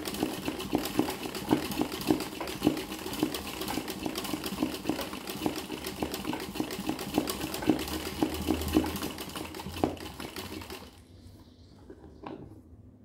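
Sewing machine stitching free-motion embroidery, the needle running fast and steadily through a towel held in an embroidery hoop. It stops about two seconds before the end, and a single small click follows.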